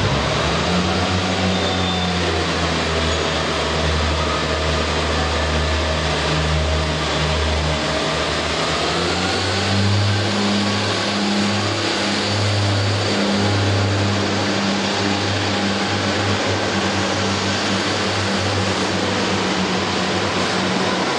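Underfloor diesel engines of a Class 143 Pacer and Class 153 multiple unit running under power as the train moves off, a steady low engine drone with a faint transmission whine that rises slowly in pitch.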